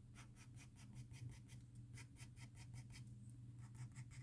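Soft 6B graphite pencil scratching on drawing paper in quick, short hatching strokes, about eight a second, faint.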